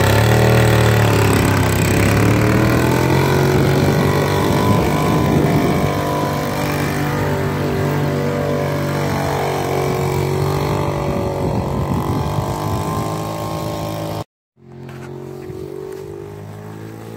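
Golf cart's swapped-in two-stroke engine running under way, its pitch rising and falling as it revs. The sound cuts out abruptly about 14 seconds in, and the engine is heard again, steadier and quieter.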